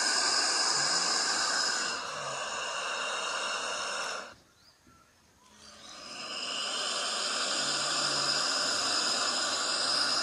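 Komodo dragon hissing: two long, breathy hisses of about four to five seconds each, with a pause of about a second between them.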